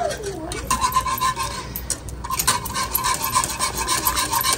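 Repeated scraping and rubbing of a utensil against a cooking pot, as when stirring the soup, in quick strokes over a faint steady tone that comes in about a second in.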